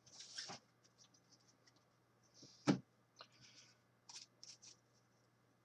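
Trading cards being handled: faint scratching and rustling, with one sharp tap about halfway through and a few light clicks near the end.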